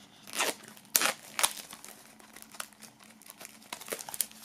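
Plastic shrink-wrap film crinkling and crackling as it is torn open and peeled off a CD slipcase. There are a few sharp crackles about half a second and a second in, then lighter, scattered crackles.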